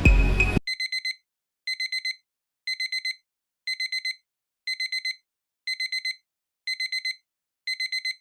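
Digital timer alarm beeping: quick groups of four short high beeps, a group about once a second, marking the end of a 25-minute Pomodoro work session. An electronic music loop cuts off just before the beeping starts.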